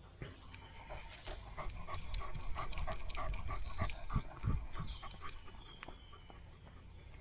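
A dog panting rapidly and rhythmically right at the microphone of a camera mounted on its head. The panting is loudest through the middle and eases off near the end, with a few dull bumps in the middle.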